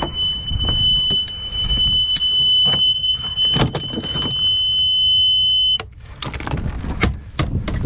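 Sailboat engine control panel's alarm buzzer sounding one steady high tone, then cutting off suddenly about six seconds in as the panel's key is switched off. This is the warning that sounds when the auxiliary engine is stopped with the panel still on. A few knocks and clicks of handling come with it.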